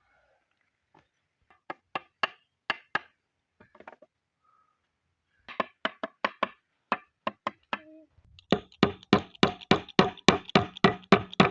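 Knocking on wood, as from hammer blows: a few scattered strikes at first, then, from about eight and a half seconds in, a quick, even run of about four blows a second.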